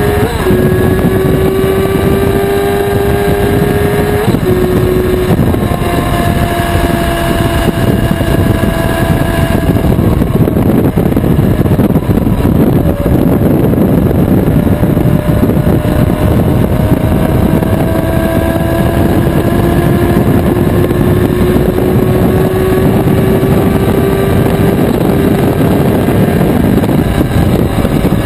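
Yamaha R6 sport bike's inline-four engine running at steady cruising speed, its pitch dipping slightly about four seconds in and then climbing slowly over the second half as the bike gains speed. Heavy wind rush on the camera's microphone runs under the engine.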